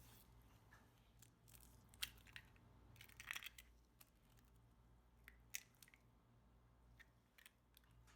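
Near silence with a low steady hum, broken by a few faint clicks and scrapes: one about two seconds in, a short cluster near the middle, and another about five and a half seconds in.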